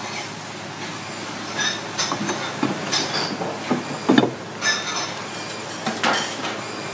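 A large kitchen knife cutting through a live lobster's shell on a wooden chopping board: scattered knocks, cracks and clinks, the loudest about four seconds in.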